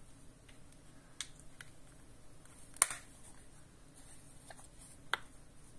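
A few light clicks and taps from a small hard-shell manicure kit case being handled, with one sharp snap about three seconds in as the case is closed, and another click near the end.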